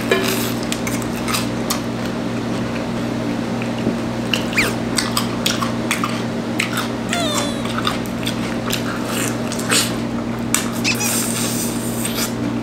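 Close-up eating sounds of a person chewing and smacking on sauced fried chicken, biting and tearing the meat off the bones, with many short wet clicks and crunches. A steady low hum runs underneath.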